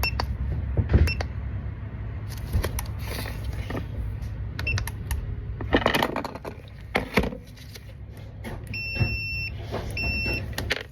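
Multimeter continuity tester beeping: brief high blips early on, then two steady high beeps near the end, the second shorter, signalling that the switch contacts are closed. Clicks and scraping of the probes being set against the switch terminals.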